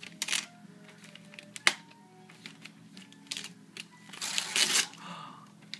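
Electronic children's toy tablet in its box playing a short tune of beeping notes at changing pitches, with a sharp click a little under two seconds in. Wrapping paper crinkles briefly about four seconds in.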